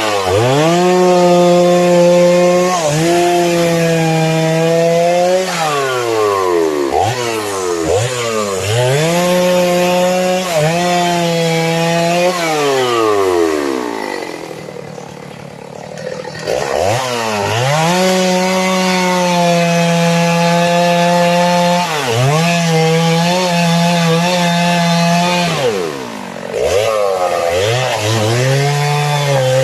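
Two-stroke chainsaw cutting sengon wood: the engine is held at high revs through cuts of a few seconds each, drops and revs back up between cuts, and falls to a quieter idle about halfway through.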